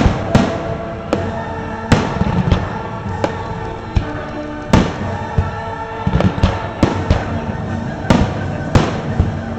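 Fireworks shells bursting in sharp bangs at irregular intervals, about a dozen of them, over the display's accompanying music.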